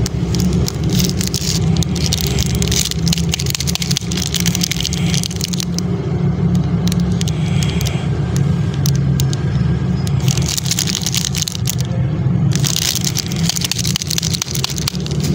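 Plastic candy wrappers crinkling in bursts as hands squeeze and handle a chocolate bar's wrapper, over a steady low rumble.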